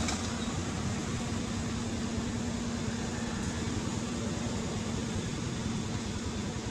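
Steady, even background noise with a low hum underneath, unchanging throughout; no distinct animal calls or knocks stand out.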